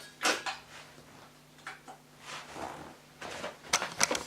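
Handling noise from a plastic plug-in doorbell receiver: a sharp click near the start, a few light knocks, then a quick run of clicks near the end. No chime sounds.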